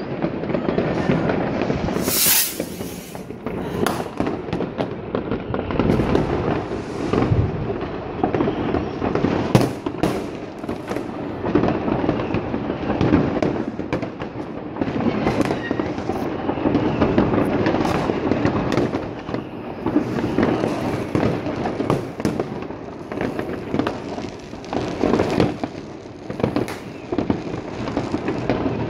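New Year's Eve fireworks going off all around: a dense, continuous din of rockets and firecrackers banging and crackling, with no let-up, the loudest bang about nine to ten seconds in.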